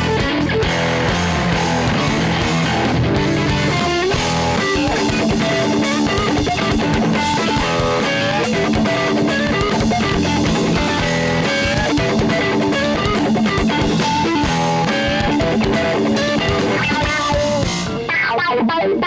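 Live instrumental funk-metal rock played loudly by a trio: distorted electric guitar riffing over bass guitar and a drum kit. Near the end the music glides down in pitch and briefly thins out.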